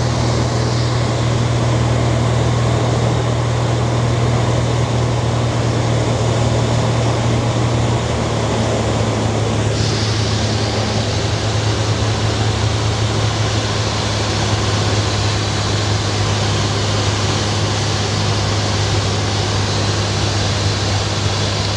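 Cessna light aircraft's engine and propeller droning steadily, heard inside the cabin, with a constant rushing hiss; the drone drops slightly in pitch about eight seconds in.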